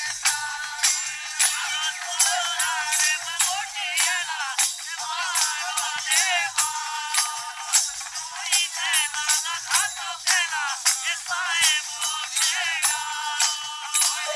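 Live Pahari folk music: men singing to a steady beat on a dholak and a jingling hand-held frame drum, with hand-clapping. The sound is thin, with no bass.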